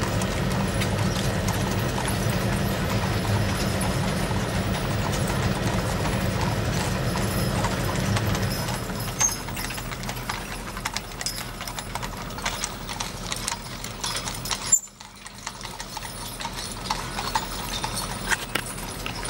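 Horses' hooves clip-clopping on an asphalt street as horse-drawn wagons pass, with a low rumble under it for the first eight seconds or so that then fades. A single sharp knock comes about fifteen seconds in.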